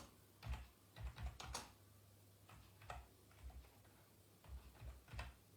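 Near silence: a few faint, irregular clicks and soft low thumps over a steady low hum.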